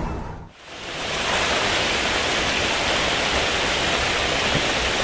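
Steady rushing noise, like static or falling water, that swells in after a short dip near the start and then holds level.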